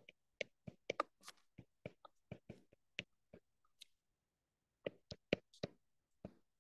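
Stylus tip tapping and clicking on a tablet's glass screen during handwriting: a quick, irregular run of faint sharp clicks, with a pause of about a second some four seconds in.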